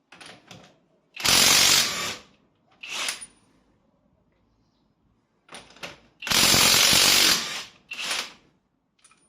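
Cordless impact wrench rated at 1000 Nm, run in two long bursts of about a second each, roughly five seconds apart, each with short trigger blips just before and after.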